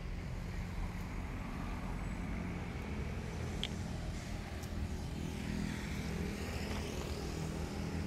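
Road traffic: a vehicle passes by over a steady low rumble of street noise.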